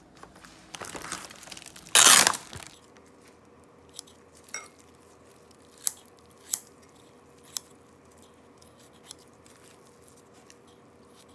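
Plastic meat packaging rustling and crinkling as it is opened, loudest in a burst about two seconds in. Then about six sharp, spaced clicks as kitchen scissors snip raw pork in a glass bowl.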